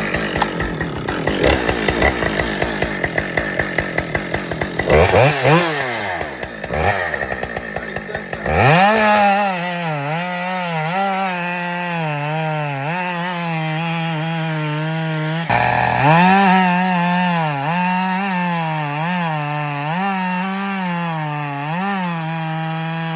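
Husqvarna 572XP two-stroke gas chainsaw idling with an uneven beat, revved a few times, then held at full throttle from about eight seconds in, cutting through a log. Its pitch sags and recovers again and again as the chain loads up in the wood.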